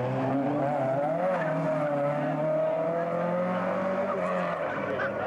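Rally car engine revving hard as the car drives away along the stage, its pitch wavering up and down with the throttle and dropping near the end.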